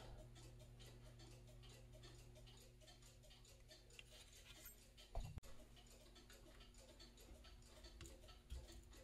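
Near silence: faint room tone with a low hum and a faint, even ticking, and one soft knock about five seconds in.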